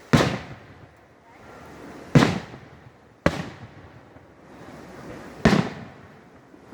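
Fireworks shells bursting about 1,000 feet away: four sharp booms, one to two seconds apart, each trailing off after the bang.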